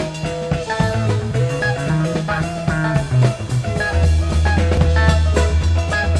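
Background music with guitar and a steady drum beat; a deep bass line comes in about four seconds in.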